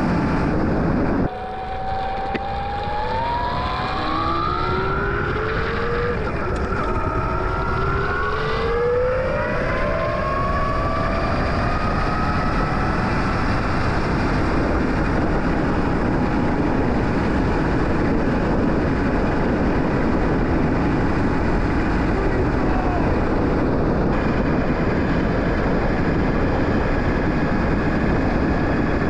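Electric motorcycle's 72-volt 3000-watt motor with integrated four-speed gearbox whining under acceleration: the whine climbs in pitch, drops once about six seconds in, climbs again and then holds steady at speed. Heavy wind rush on the microphone runs underneath.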